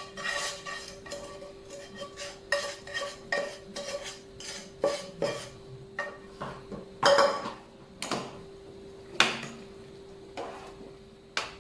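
Metal utensil stirring and knocking against a cooking pot: a run of irregular ringing clinks, the loudest about seven and nine seconds in, over a steady hum.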